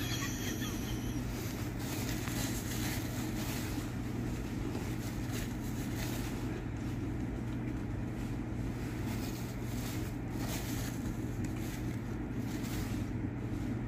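Steady low machine hum of a restaurant dining room, even throughout, with a few brief rustles of a paper napkin.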